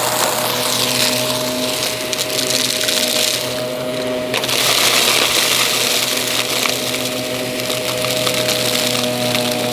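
Aspiron vacuum cleaner running steadily, a motor whine over a rapid crackle of crunchy debris being sucked up.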